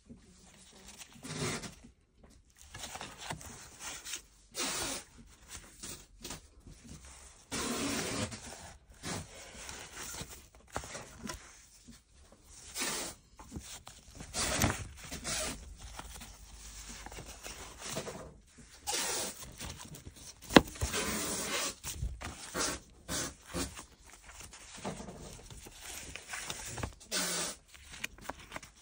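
Old paper record sleeves rustling and sliding as a stack of 78 rpm gramophone records is leafed through by hand, in irregular short swishes, with one sharp click about two-thirds of the way in.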